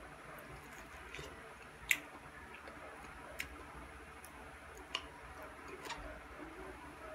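Eating chunks of pineapple with a metal fork: a few sharp clicks of the fork against the plate, a second or more apart and the loudest about two seconds in, over faint chewing.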